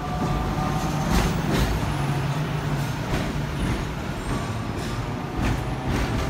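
Hong Kong double-decker tram running along the street, heard from inside its upper deck: a steady rumbling hum with a few sharp clacks and rattles along the way, and road traffic passing close alongside.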